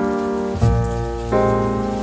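Soft piano background music, with a new chord struck about every three-quarters of a second, each one fading until the next.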